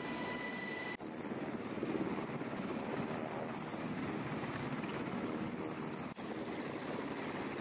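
Steady engine noise, with a high, steady whine that cuts off about a second in, where the sound changes abruptly; it breaks again briefly about six seconds in.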